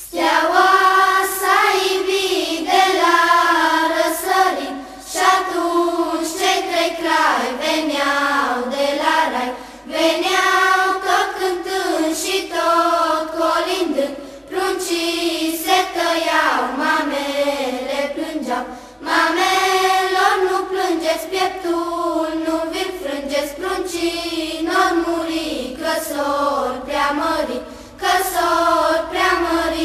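Children's choir singing a Romanian Christmas carol (colindă) in unison, in short repeated phrases with brief breath pauses between them.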